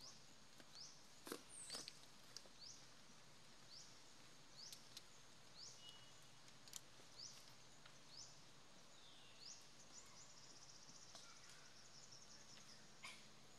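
Quiet outdoor ambience with a faint, high-pitched chirp that rises in pitch, repeated about once a second by a small animal. A few soft clicks are scattered through it.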